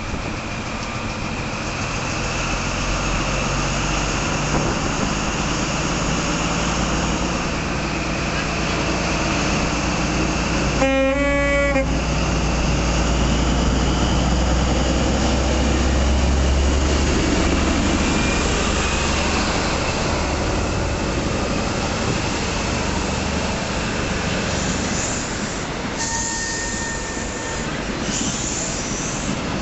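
Diesel engine of an InterCity 125 (HST) power car, a low rumble growing louder as the train comes along the platform under power, then fading. About eleven seconds in the train sounds one brief horn blast. Near the end a short steady tone is heard.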